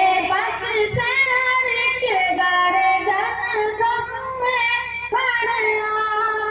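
A boy singing an Urdu hamd solo into a microphone: long, ornamented melodic phrases in a high voice, with a short break for breath about five seconds in.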